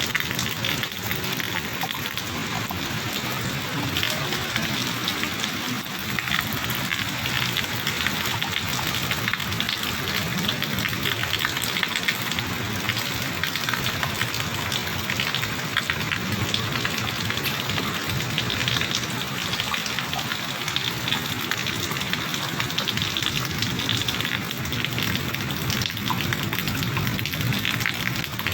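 Heavy monsoon rain pouring steadily, a dense hiss with countless drops pattering and splashing.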